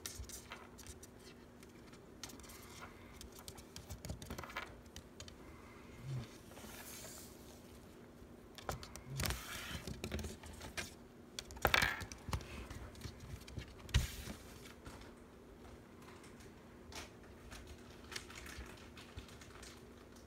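Scattered soft clicks, taps and rustles from a small pet being fed treats close to the microphone, the sharpest two clicks about twelve and fourteen seconds in, over a faint steady hum.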